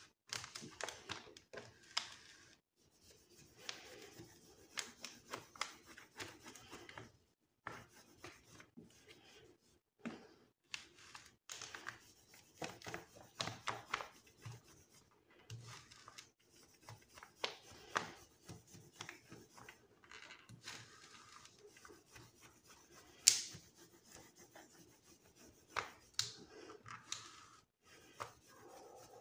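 Hands rubbing and smoothing adhesive contact film over a paper sheet: faint scrapes, crinkles and scattered small clicks, with one louder tap about two-thirds of the way through.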